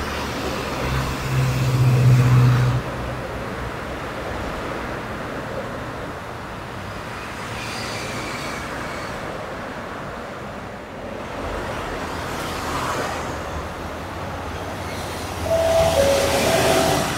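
Electric train running noise at a station platform, with a loud low hum for a couple of seconds near the start. The Nankai Rapi:t set working the Semboku Liner comes in about midway, and a short two-note tone sounds near the end.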